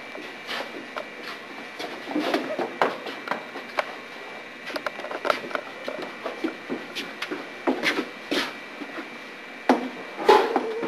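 Footsteps with irregular knocks, rubs and scrapes in a narrow hallway, ending in a louder thump about ten seconds in as a foot lands on a step stool.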